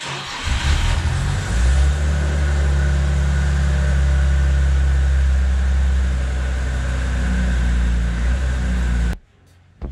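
Engine of a home-built articulated off-road vehicle idling, a steady deep hum that swells slightly in the first couple of seconds; it cuts off sharply about nine seconds in.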